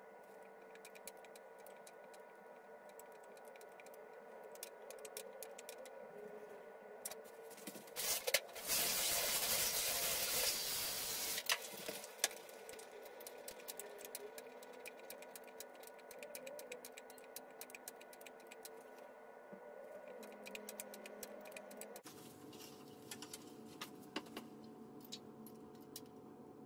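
Light clicks and rattles from a glass dry plate being rocked in a plastic tray of fixer, over a steady hum. About eight seconds in, a loud rushing hiss lasts about three seconds.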